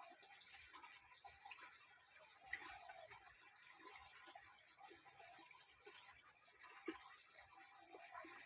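Near silence: faint background hiss with a few scattered faint ticks.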